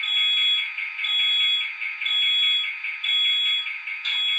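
Startup sequence of an ESU sound decoder in an HO-scale EMD SD70ACe model, played through the model's small speaker: a high electronic alarm beeps about once a second over a steady hiss. Near the end the beeping stops and a louder, even rushing sound takes over as the sequence goes on.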